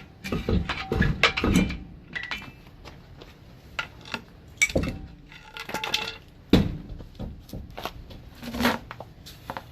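Metal tools and parts clinking and clanking: a series of sharp knocks, several with a brief metallic ring, in bunches about a second in, around the middle, and again a little later.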